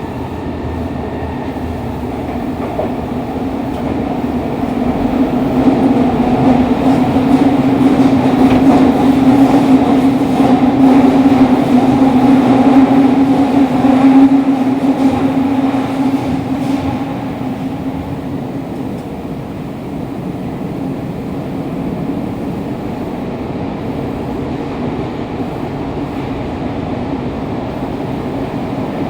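Fukuoka City Subway 2000-series train running underground, heard from the car floor: a steady low drone with a higher hum above it. It grows louder about four seconds in and eases off after about seventeen seconds.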